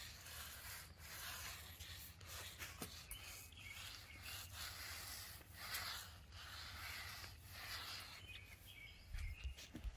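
A long-handled 3/4-inch nap roller spreading wet concrete waterproofing coating over a slab, a soft swishing that swells and fades with each stroke, about one stroke a second. Faint bird chirps now and then.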